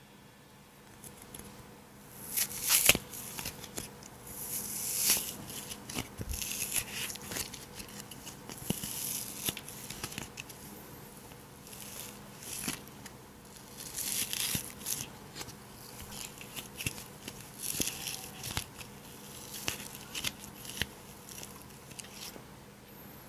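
Empty cardboard packing-tape core squeezed, crushed and torn apart by hand close to the microphone: dry crackling, crinkling and tearing in irregular bursts with sharp clicks.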